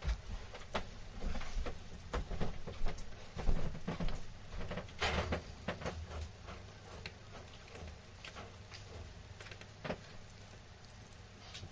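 Plastic stylus tapping on the touchscreen of a W960 mobile phone watch held in the hand: a string of irregular light taps and clicks, busiest in the first half, with low handling rustle between them.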